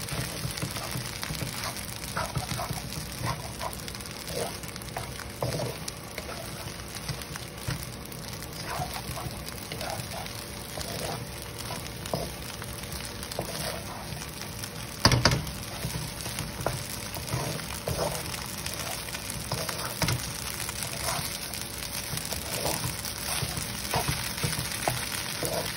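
Noodles, vegetables and eggs sizzling in a hot wok while a wooden spatula stirs and scrapes through them, with frequent light knocks of the spatula against the pan and one louder knock a little past halfway.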